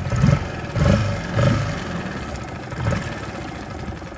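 Small Tohatsu four-stroke outboard motor running while it warms up after a cold start. Its revs swell briefly several times in the first few seconds as the throttle is opened, then it settles to a steadier, quieter run near the end.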